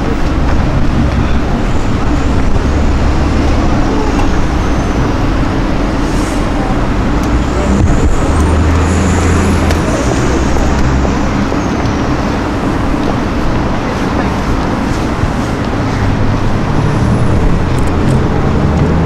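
Street traffic with car engines running at low revs, a steady rumble that shifts in pitch now and then. A faint high whistle rises and falls near the middle.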